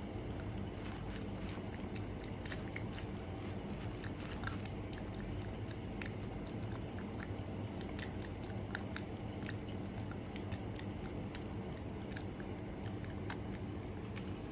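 Persian cat lapping water, a quick run of small wet clicks, a few a second.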